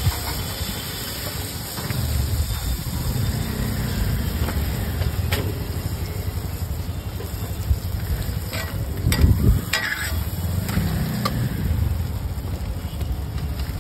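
Steady low rumble of street noise, with scattered clinks and scrapes of steel utensils against pots and foil plates as street food is served.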